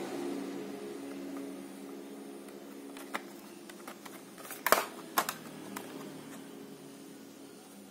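Plastic blister pack on a Hot Wheels card crackling and clicking as the carded toy is turned over in the hands: a few sharp crinkles, the loudest about halfway through. A faint low steady tone fades out underneath.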